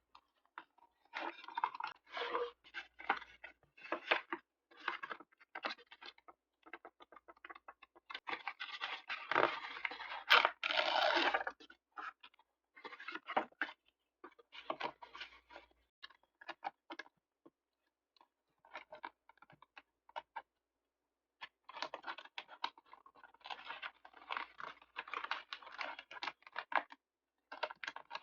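Paper being handled and rustled during journal decorating, in irregular bursts of short strokes. The busiest, loudest stretch comes about a third of the way in, and there is a few-second lull past the middle.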